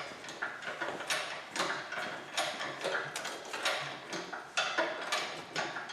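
Irregular mechanical clicks and knocks, about two or three a second, from hands-on work around the engine assembly going in.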